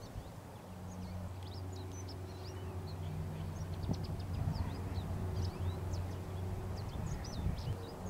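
Many small songbirds chirping in quick, scattered short notes. Beneath them runs a steady low hum.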